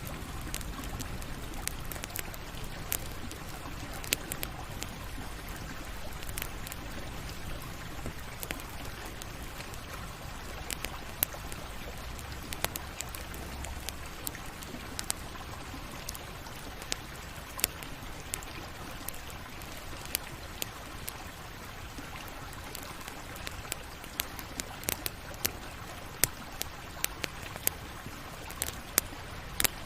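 Campfire burning: a steady hiss with sharp crackles and pops of burning wood scattered throughout, coming thicker in the last few seconds.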